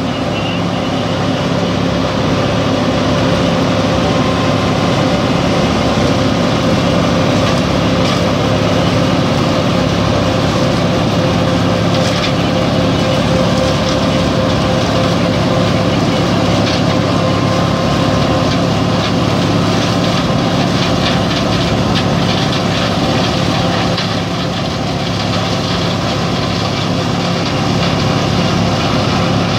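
Heavy farm machinery running steadily: a constant engine drone at corn harvest, with a slight dip in level a little over three quarters of the way through.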